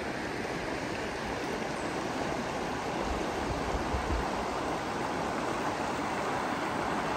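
Mulberry River water rushing steadily over a shallow, rocky riffle.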